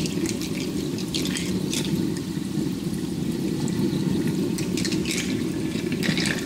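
Jebao DC submersible pump with a 3D-printed needle-wheel skimmer impeller, running with a steady churning and an irregular gargling as it sucks air in through its air tube and silencer and mixes it into the water.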